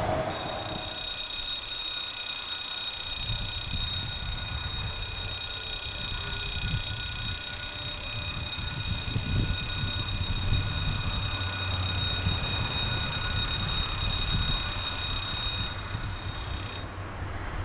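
Level crossing warning ringer sounding one continuous electronic tone while the barriers come down, cutting off suddenly about a second before the end. A low wind rumble runs underneath.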